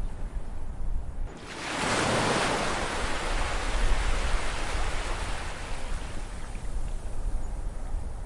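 An ocean wave breaking about a second and a half in, its surf washing in and slowly fading, over a steady low rumble of the sea.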